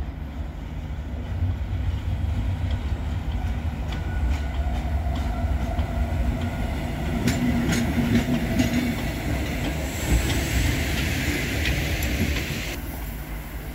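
Pt47 steam locomotive running slowly past: a low rumble with its wheels clacking over rail joints. Near the middle a steam hiss builds, then cuts off suddenly near the end.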